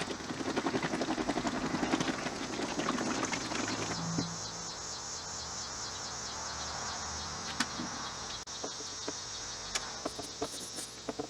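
A bottle of polishing compound being shaken hard for about four seconds, the liquid sloshing in a fast steady rhythm. Then it stops, leaving scattered small taps and clicks over a steady high-pitched insect buzz.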